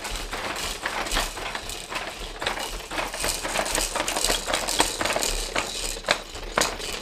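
Baby activity jumper rattling and clicking as the baby bounces in it, its frame, seat and hanging toys knocking in quick, irregular clicks.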